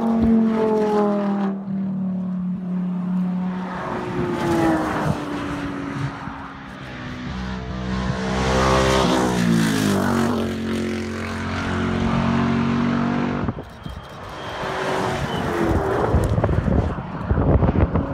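Rally car engines accelerating hard through a bend and going past, with gear changes. The pitch drops as each car goes by, and the loudest pass comes about nine seconds in.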